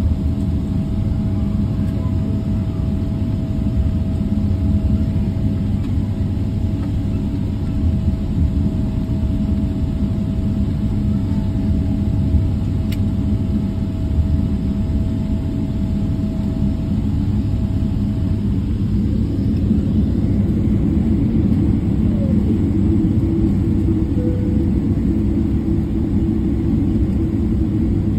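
Airliner cabin noise heard from a passenger seat: the steady low rumble of the jet engines and air system as the plane taxis after landing. A thin steady tone runs through it and stops about two-thirds of the way through.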